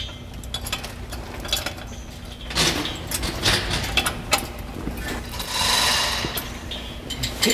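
Metal clicking, knocking and rattling of a chain hoist and engine-stand hardware as a jet engine is handled and positioned. The clatter thickens in the middle, and a longer rattling rush comes about two-thirds of the way through.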